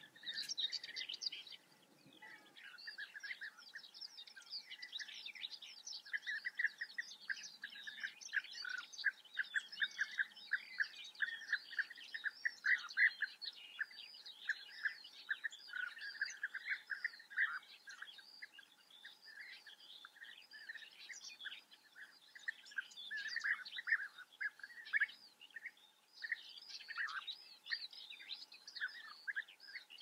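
A colony of European bee-eaters calling together: a dense run of short, overlapping chirps.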